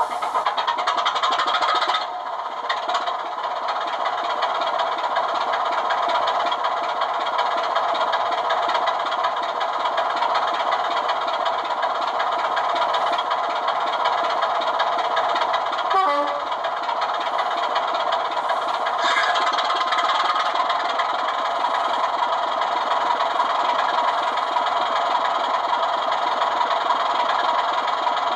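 The sound decoder of a model Class 24 locomotive plays a recorded Sulzer diesel engine, running steadily. Through the model's small speaker it sounds thin, with little bass.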